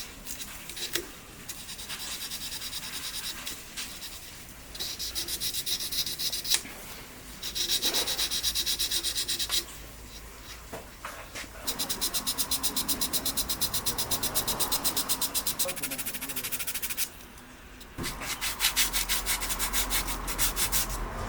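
Rapid back-and-forth abrading strokes, sanding by hand on the polymer grip frame of a GHK Umarex Glock 17 airsoft pistol. They come in bouts of a few seconds with short pauses between.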